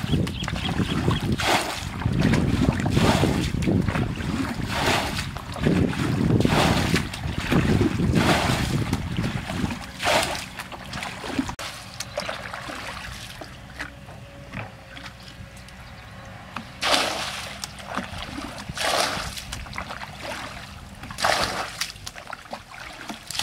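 Plastic bucket bailing muddy water: repeated scoops and splashes of thrown water, about one every one and a half to two seconds, with sloshing between. It goes quieter for a few seconds past the middle, then three more splashes come near the end.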